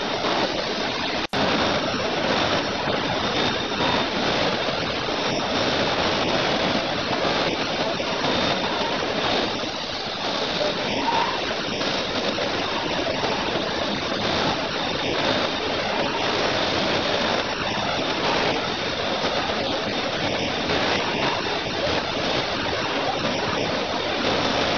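Five-axis CNC machining center engraving lettering into a red domed workpiece: a steady, even rushing noise with a faint high whine, broken by a split-second dropout about a second in.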